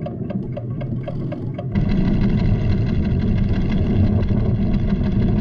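Cartoon soundtrack: the seismograph instrument ticking rapidly, about five ticks a second, over a low rumble. Less than two seconds in the ticking stops and a louder, deep rumble takes over with a sustained dramatic music chord as the volcano comes into view.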